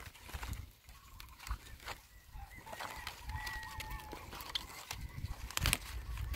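Hand pruning shears clicking and snipping off young mango shoot tips, with the loudest, sharpest snip near the end. A chicken calls in the background, a short wavering call in the middle.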